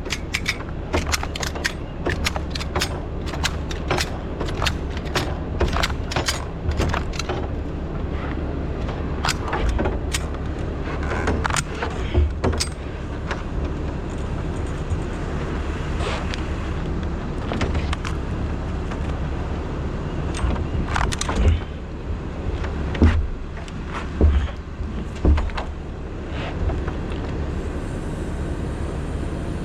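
Engine running steadily at idle under many sharp metallic clicks and clinks, quick and dense for the first several seconds, then scattered and occasional.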